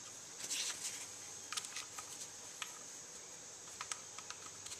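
Faint scattered metal clicks and a short scrape from a small pick working a shift valve assembly out of the bore of an aluminium 4R70W transmission valve body, over a steady hiss.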